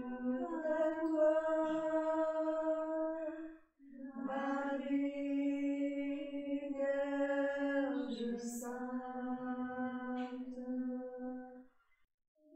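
A single voice singing a slow, chant-like melody of long-held notes, with a short break about four seconds in and a stop near the end.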